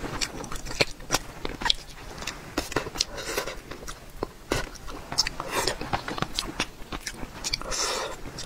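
Close-miked sounds of a person eating braised fish in sauce: wet chewing and lip smacks in an irregular run of short clicks.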